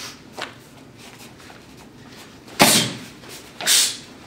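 Two sudden swishing hits about a second apart, from karate strikes being demonstrated on a partner.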